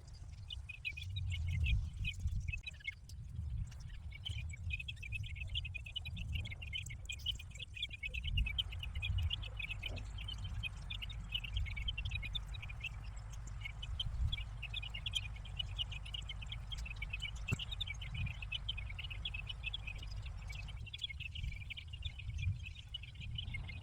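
Cicadas calling in a dense, fast-pulsing high-pitched chorus throughout, over a low rumble.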